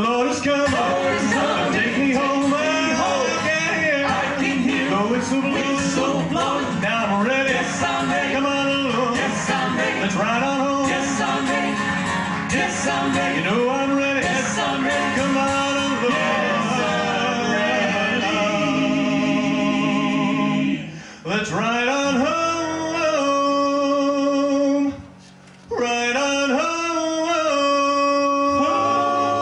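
Vocal group of men's and a woman's voices singing a song in close harmony. In the last third they hold long chords, broken by two brief pauses.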